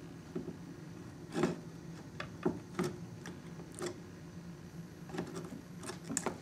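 Scattered small clicks and taps as a graphics card is handled and lined up with the motherboard's expansion slot, about a dozen light knocks over a few seconds.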